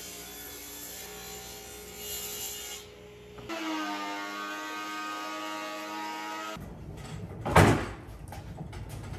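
Power tools cutting walnut: a table saw running with a steady hum, then a benchtop thickness planer's steady whine that cuts off sharply. A loud knock follows, with smaller knocks, as the wooden door of a CNC enclosure is handled.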